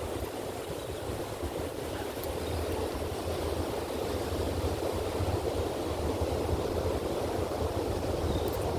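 Steady rush of ocean surf, with wind rumbling on the microphone.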